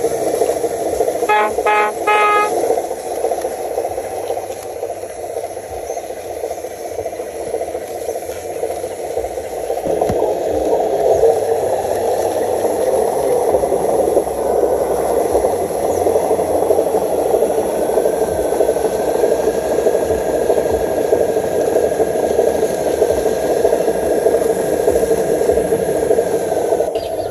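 A vehicle horn gives a quick series of short toots about a second in. Then comes a steady mechanical running noise, with a faint whine that climbs slowly in pitch through the second half.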